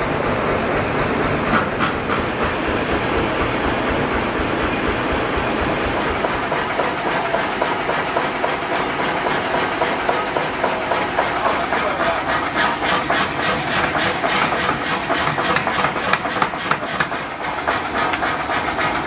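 Steady mechanical clatter and rumble of a forging shop, turning in the second half into the rapid, evenly repeated blows of a mechanical power hammer.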